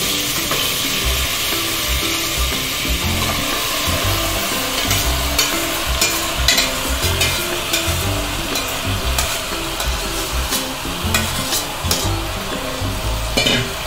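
Marinated mutton sizzling as it is tipped into hot oil and fried onions in a pressure cooker. From about five seconds in, a metal spoon clinks and scrapes against the steel bowl and the pot.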